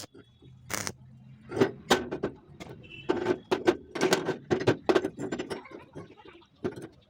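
Irregular series of sharp knocks and clicks, several a second, busiest in the middle and thinning out near the end.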